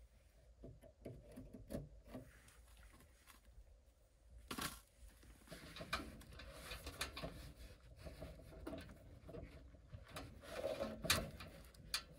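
Faint scattered clicks, taps and rubbing of hands working the wiring and multimeter test leads in a furnace control compartment, with a sharper knock about four and a half seconds in and another near the end.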